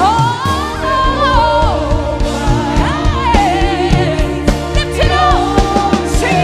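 Live gospel worship music: a singer's voice holding and sliding between long notes over sustained keyboard chords and a band's steady beat.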